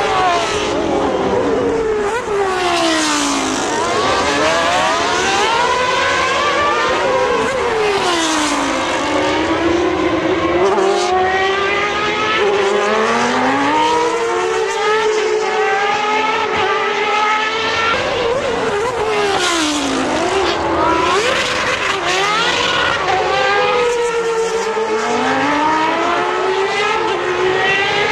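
Formula One cars at high revs going past one after another, their overlapping engine notes falling in pitch and then climbing again about three times.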